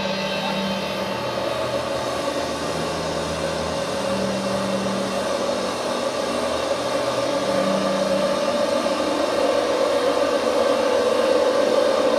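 Dense drone of steady ringing tones: speech played back into a room and re-recorded over and over until only the room's resonant frequencies remain. A low tone swells and fades a few times, the last trace of the speech's rhythm, while a higher ringing grows louder toward the end.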